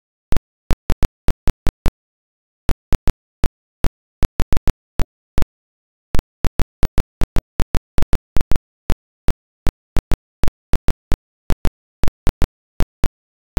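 Sharp clicks and pops at irregular intervals, about three or four a second with a few short pauses, over otherwise dead silence: crackle on the silent track of an old film transfer.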